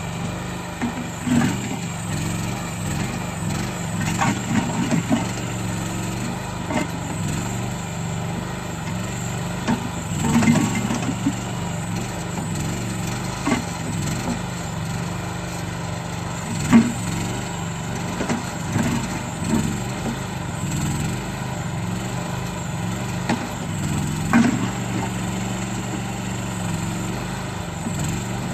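Small engine of a towable backhoe running steadily as it digs, with a knock or clank every few seconds.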